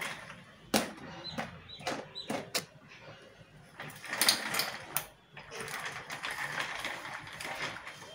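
Plastic baby walker pushed by its handle over a tiled floor, its small plastic casters rattling and clattering. There are several sharp clicks in the first few seconds, followed by longer stretches of rattling.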